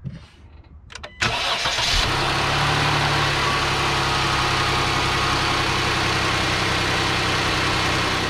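A 2011 Jeep Grand Cherokee's 3.6-litre Pentastar V6 is cranked by the starter about a second in, catches within a second and settles into a steady idle. It runs without rattle from the newly replaced AC compressor clutch, which the owner calls so quiet.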